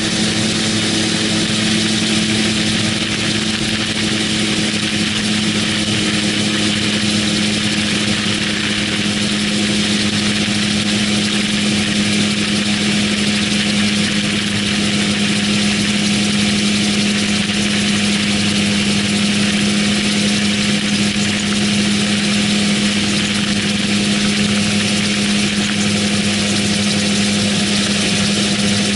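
AutoGyro MTO Sport autogyro in flight: the steady drone of its pusher engine at cruise, under a constant rush of wind across the open cockpit.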